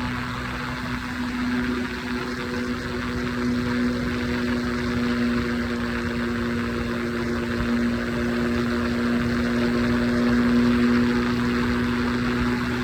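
Triumph Scrambler 400X's single-cylinder engine running at a steady highway cruising speed, a constant drone that hardly changes in pitch, over a steady rush of wind and road noise.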